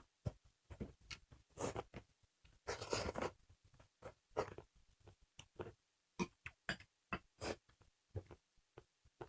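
Close-up eating sounds: soft chewing and mouth smacks in an irregular string of short clicks, with a longer, louder bit about three seconds in.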